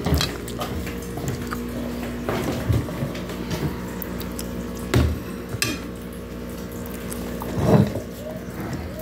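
Fork clinking and knocking on a plate of cut-up pizza, several sharp clicks over a steady low hum; near the end, louder handling noise as a dog eats from the plate.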